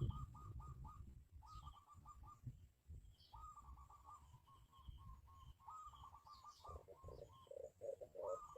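Birds calling faintly: rapid runs of short, slightly falling notes, several a second, broken by brief pauses. Near the end a lower, pulsing series of notes joins in, about three a second.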